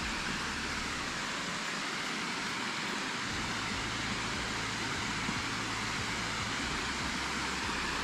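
Steady rushing hiss of a small waterfall spilling over rock ledges.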